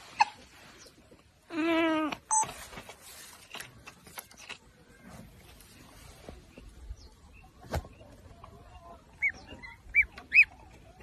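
A gosling giving short high peeps, a couple at the start and three in quick succession near the end. About two seconds in there is a louder, lower, wavering call lasting under a second, and a single sharp click comes near eight seconds.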